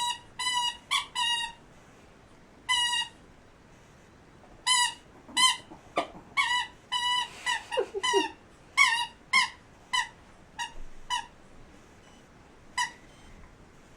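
Rubber squeaky dog toy squeaking again and again in short squeaks of the same pitch, coming in irregular clusters as a dog bites and chews it.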